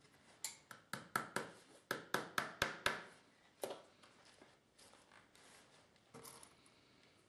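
Lasting pliers used as a hammer, driving tacks to hold a leather shoe upper on the last: a quick run of about a dozen sharp taps, one more tap after a short pause, then a few fainter knocks near the end.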